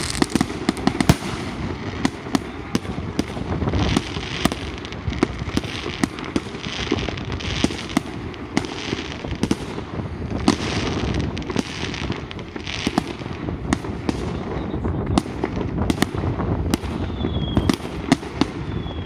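Fireworks display: aerial shells bursting one after another, a dense run of sharp bangs with no let-up. A thin, wavering whistle comes in near the end.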